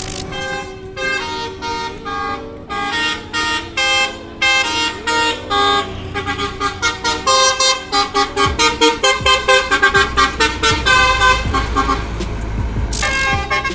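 A vehicle horn sounding a rapid run of short toots at changing pitches, like a multi-tone musical horn playing a tune. The toots come a few per second and speed up toward the middle, over a low road rumble.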